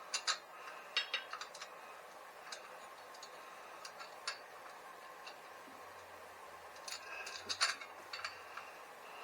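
Small metallic clicks and clinks of bolts, nuts and hand tools as the mounting bolts are started on a bicycle engine's mount. The clinks come in quick clusters near the start and again about seven seconds in, with single ticks between.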